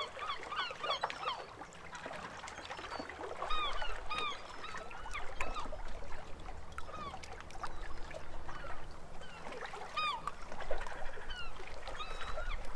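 Birds calling: a scatter of short, arching squawks, some overlapping, repeated through the whole stretch, with a faint low rumble underneath.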